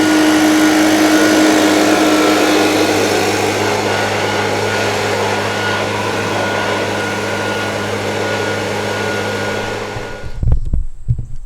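Leaf blower running steadily, blowing water off a freshly pressure-washed tiller, then switched off about ten seconds in, followed by a few low thumps.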